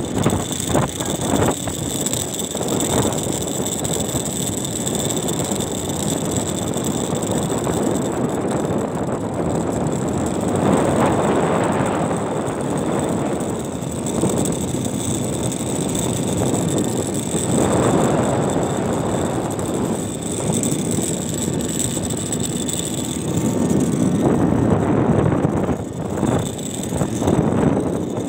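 Wind buffeting the phone's microphone while riding along a road: a steady rushing noise that swells and eases every few seconds.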